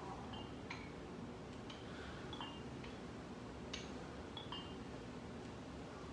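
Faint metallic clinks of the loose iron plates on a pair of plate-loaded dumbbells, roughly once a second, some with a brief ring, as they are lifted and lowered in deadlift reps. A steady low hum sits underneath.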